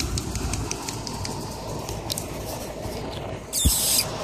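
Low steady rumble of outdoor air and handling noise on the microphone, with faint rustling ticks, and a louder brief rustle with a soft thump about three and a half seconds in.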